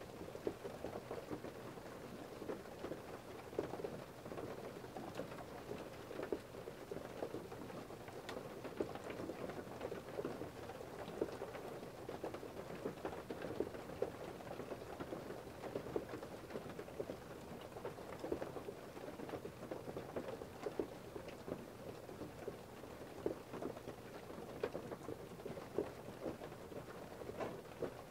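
Steady rain falling, a dense patter of drops with many small individual drop ticks.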